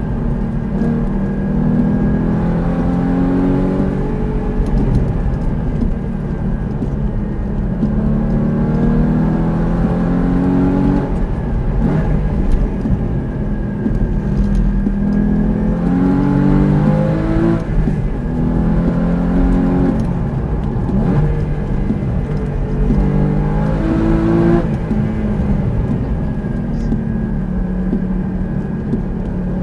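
Porsche sports car engine heard from inside the cabin, revving up through the gears and dropping back again and again as the car shifts, brakes and accelerates between corners on a race track.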